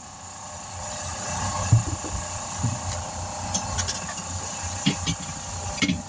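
A vehicle engine idling with a steady low hum, with a few short knocks and clunks as a mounted steel wheel and tire is handled and set down on the pavement.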